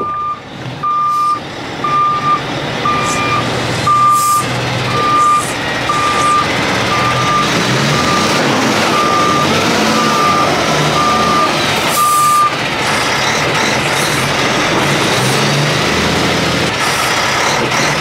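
Kenworth T880 semi-truck backing up in mud with its diesel engine running and its reverse alarm beeping about once a second; the beeping stops about 12 seconds in while the engine keeps running.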